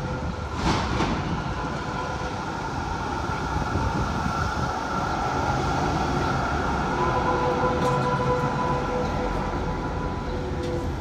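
Melbourne B2-class articulated tram pulling in and passing close by: a steady electric whine of several tones over the rumble of wheels on the rails, louder as it comes alongside. Near the end a whine tone glides down as the tram slows.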